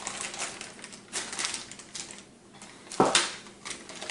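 Small plastic hardware bags of screws crinkling and rattling as they are handled, with irregular clicks and one sharper knock about three seconds in as a bag is set down on the wooden desk.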